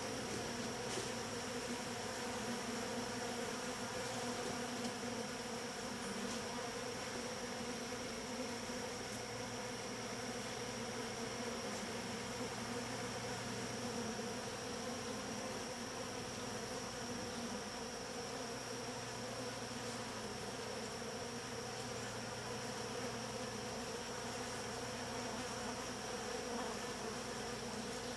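Honeybee colony buzzing: a steady, even hum of many bees around an open hive.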